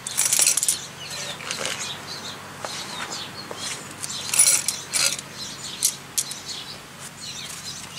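Irregular metal clicks and short scraping bursts from a disc brake caliper wind-back tool being turned to screw the rear brake caliper piston back in. The loudest bursts come near the start and about four and a half seconds in.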